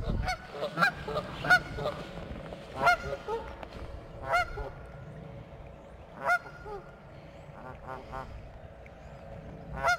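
A pair of nesting geese honking, a string of short separate calls every second or two: agitated, defensive calls at a person who has come too close to their nest.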